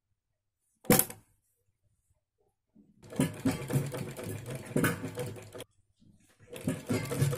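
A single sharp click about a second in, then a domestic sewing machine stitching in two runs: it starts about three seconds in, stops for about a second, and starts again near the end.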